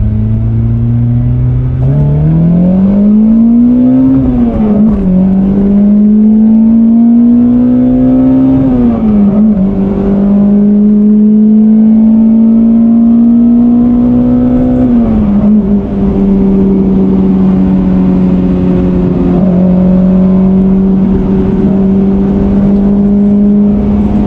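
Toyota Corolla RXi's 4A-GE 20-valve Blacktop four-cylinder engine accelerating hard, heard from inside the cabin. The revs climb steeply and fall at an upshift about four seconds in, then rise more slowly through the next gears with shifts around nine and fifteen seconds, and finally hold steady.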